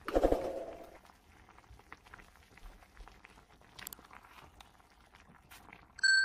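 Kimchi sauce simmering in a clay pot, faint bubbling with small clicks and scrapes of tongs and a silicone spatula as the sauce is thickened with cornstarch water. It is framed by louder added sound effects: a short tone at the start that fades over about a second, and a bell-like ding near the end.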